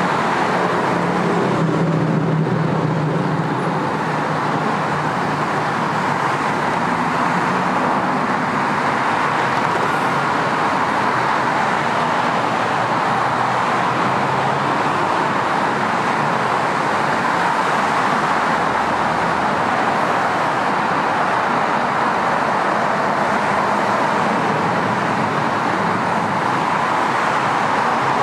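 Steady freeway traffic noise: a continuous, even rush of tyres and engines from many passing vehicles, with a lower engine hum in the first few seconds.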